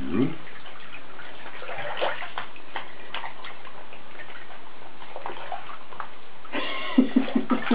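Shallow bathtub water sloshing and splashing as a wet Chihuahua puppy is held and washed in it, with a few small splashes a couple of seconds in. A person's voice breaks in near the end.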